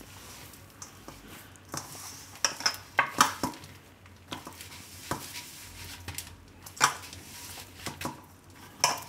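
Hand-kneading a stiff pearl-millet (bajra) flour dough in a stainless steel bowl: irregular knocks and metallic clinks as the dough and hand strike the steel bowl.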